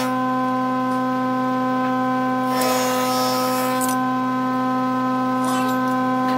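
Wood lathe motor running with a steady hum and whine. A turning tool cuts into the spinning wood in two short scraping passes, one about two and a half seconds in and one near the end.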